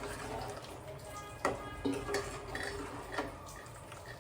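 A metal utensil clinking against a cooking pot as the curry is stirred: a few sharp clinks, the first, about a second and a half in, with a brief ring.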